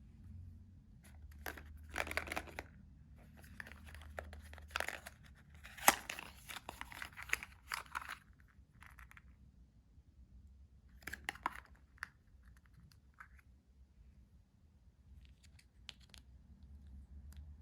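Packaging being handled and torn open in irregular bursts of tearing and crinkling, with a sharp snap about six seconds in.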